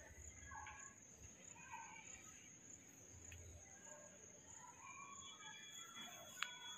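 Near silence: faint room tone with a steady high-pitched whine, a few faint distant chirps, and a single sharp click near the end.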